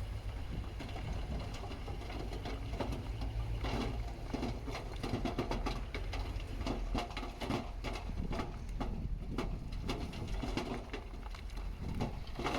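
A heavy machine's engine running with a steady low hum, overlaid from about a second and a half in by a dense clatter of rattles and knocks, typical of gravel and steel being worked.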